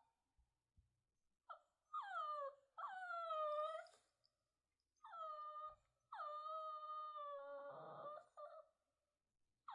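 Shih Tzu puppy whining: about five high, drawn-out whines, several dropping in pitch, the longest lasting over two seconds and turning rough near its end.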